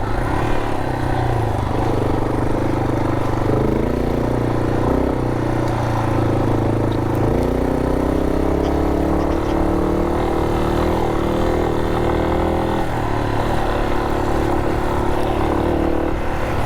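250 cc single-cylinder trail bike engine under load, climbing a loose-gravel forest road. The engine note rises a few seconds in, holds, and drops off sharply about three-quarters of the way through, as the throttle is eased.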